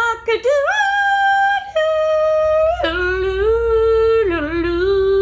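A singer's voice imitating a rooster's crow in a long, drawn-out sung line: a glide up to a high held note, then several long held notes stepping down in pitch.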